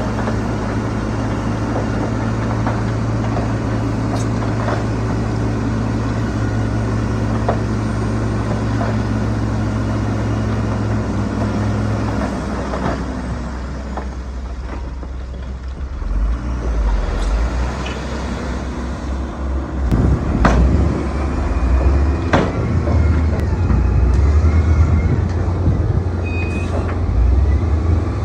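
Heavy diesel engine of construction machinery running at a steady pitch; about halfway through its note falls away and gives way to an uneven low rumble with several sharp knocks and clanks.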